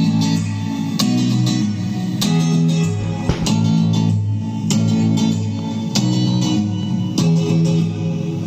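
Guitar-led music with a steady beat, played through a Beecaro K1202 portable Bluetooth speaker in a sound test.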